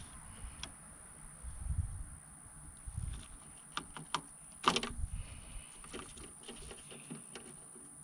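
Small clicks and handling noises of gloved hands working the turn signal socket's wires with a wire stripper, with one sharper snap about halfway through and a few low bumps.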